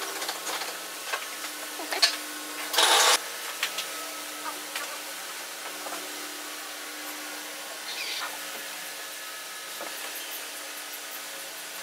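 Wooden parts being handled and fitted together on a workbench: scattered light taps and clicks of wood on wood, with one short rough scrape of wood sliding against wood about three seconds in. A steady low hum runs underneath.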